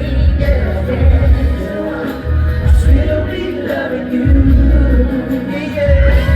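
Loud amplified pop music with a singer over a heavy bass line, as heard in the crowd at a live show.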